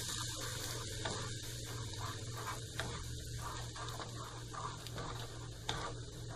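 Masala gravy cooking in a non-stick saucepan with a steady hiss, as a wooden spatula stirs it. The spatula knocks against the pan a few times.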